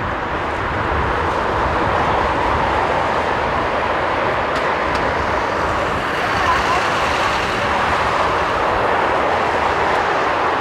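Boeing 777-300ER's GE90-115B jet engines at taxi power, a steady roar as the airliner taxis.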